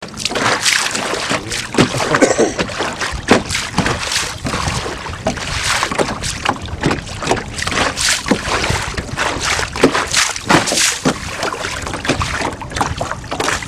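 Water splashing and slapping against a small boat's hull on choppy lake water, in an uneven run of wet splashes.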